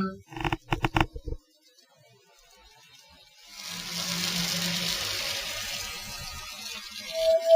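A person making ghost noises with their voice: a few short, choppy vocal sounds, a pause, then a long breathy hiss with a faint low hum under it, and a high held 'oooo' beginning near the end.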